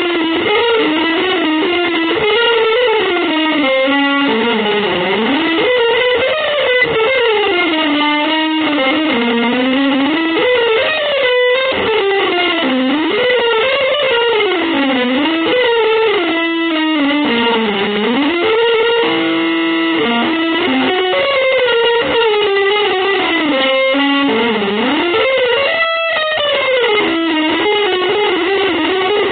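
Electric guitar playing a single winding melody line, with long held notes and smooth slides up and down in pitch.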